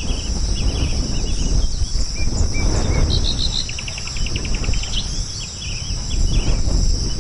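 Small birds chirping in short notes, with a quick trill, over a steady high-pitched insect buzz like crickets. A loud low rumble runs underneath.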